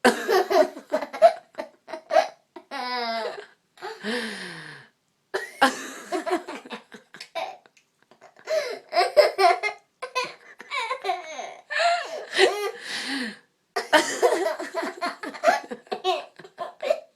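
A little girl laughing in repeated giggling fits broken by short pauses. The laughs come out jerky and hiccuping because she has the hiccups.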